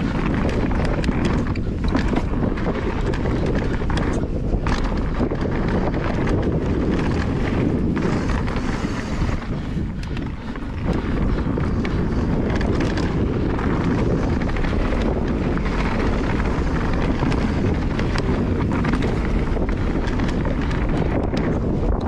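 Wind rushing over the camera microphone and a mountain bike's tyres rolling fast on a dirt trail, with the bike's rattles and knocks over bumps. The noise eases briefly about halfway through.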